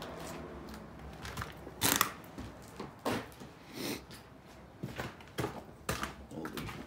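Footsteps crunching and scuffing over debris on the floor: an uneven series of steps, the loudest about two seconds in.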